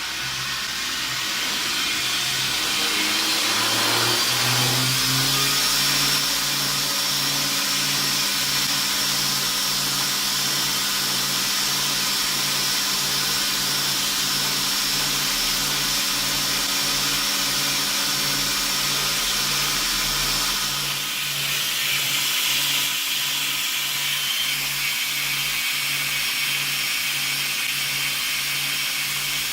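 Homemade belt grinder's electric motor and abrasive belt spinning up over the first few seconds, then running steadily with a regular low beat a little over once a second. The sound changes about 21 seconds in.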